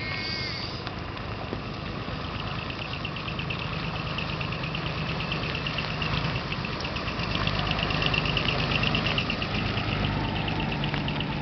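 Diesel engine of a decorated box truck running at low speed with a rapid clatter as it drives slowly past, growing louder as it comes closest and easing off near the end.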